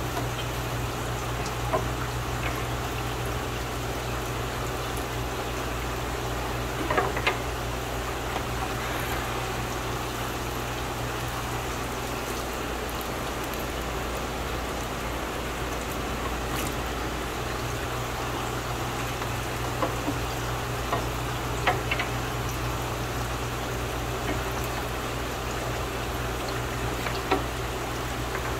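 Steady water trickling and bubbling in a rack of aquarium tanks over a low steady hum, with a few brief splashes as a fish net is worked through a tank.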